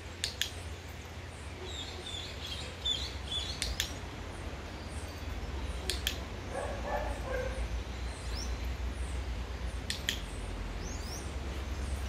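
Dog-training clicker sounding four times, each a quick double click, marking the puppy's position on the box. Birds chirp between the clicks.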